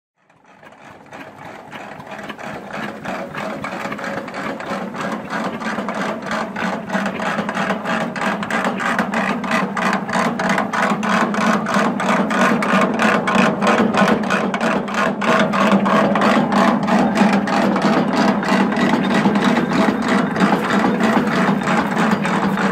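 McCormick-Deering 10-inch Type D feed grinder and its flat-belt drive from a steam engine, running with a rapid, even mechanical clatter. It builds up from nothing over the first few seconds, then runs steadily.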